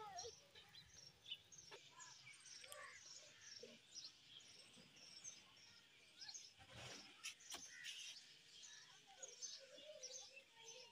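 Faint small birds chirping over and over in the background, with two soft knocks about two-thirds of the way through.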